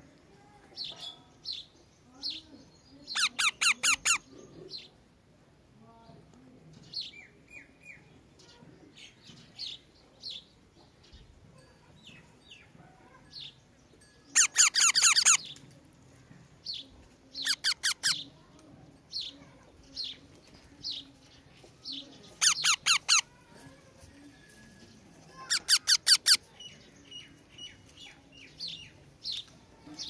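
Parakeet chick begging while an adult feeds it: about five short bursts of rapid, high, repeated calls, with scattered single chirps and squeaks between them.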